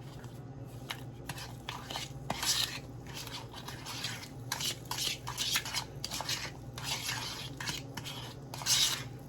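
A utensil stirring and scraping in a bowl in irregular strokes, mixing the cinnamon, brown sugar and cream cheese filling.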